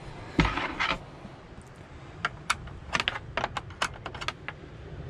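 A 10 mm spanner being fitted to and worked on the top hinge screw of an old Dometic fridge door: a short handling clatter about half a second in, then a run of irregular sharp clicks as the spanner turns the screw in short strokes.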